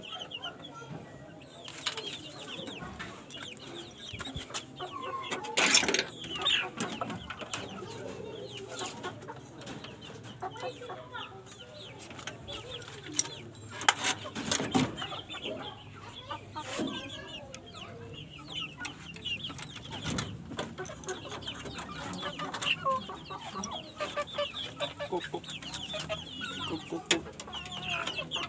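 Chickens clucking and calling throughout, with several sharp knocks.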